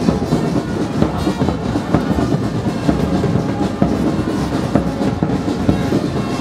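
A marching brass-and-drum band playing: bass drums and other drums beating a dense, steady rhythm with trumpets and other brass over it.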